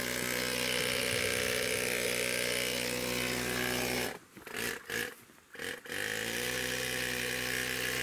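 ATV engine idling steadily with an even hum. About halfway through the sound drops away for nearly two seconds, with a few short blips, then the idle is back as before.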